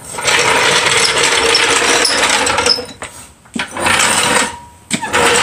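Loud metal rattling and scraping of a car jack being moved into position under the front of the car: one long stretch of about two and a half seconds, then two shorter ones.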